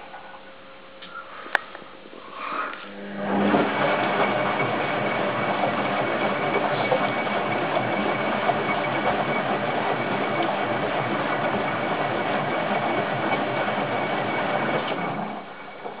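Hoover Time Manager H130E washing machine drum tumbling, its motor running and water sloshing in the drum. It starts after a short pause about three seconds in and stops near the end, as in a wash cycle's turn-and-pause action.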